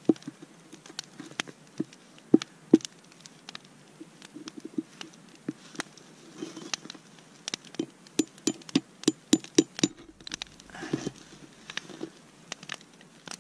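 Knife blade cutting and splitting frozen Siberian cedar wood: a series of sharp clicks and cracks, coming quicker and louder about eight to ten seconds in. The wood is frozen and brittle, liable to crack.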